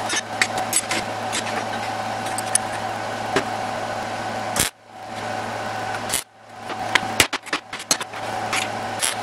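MIG welder tack-welding mild steel strips to a square steel tube: a steady arc crackle over a constant hum, breaking off briefly twice around the middle, then several short stop-start tacks near the end.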